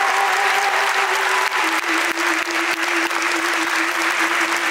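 Audience applauding steadily over music, which holds one long note that steps down a little about one and a half seconds in.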